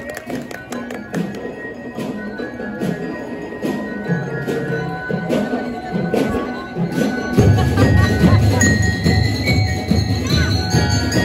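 Drum and lyre corps playing: mallet bell lyres ringing out a melody over the drum line. About seven seconds in, the band swells louder and much fuller in the low end.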